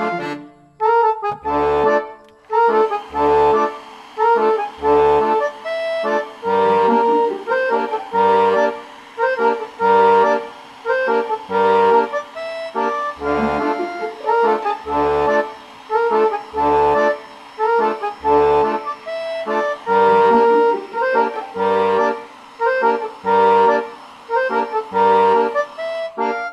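Background instrumental music: a melody over a low bass note that repeats about every second and a half, dipping briefly near the start.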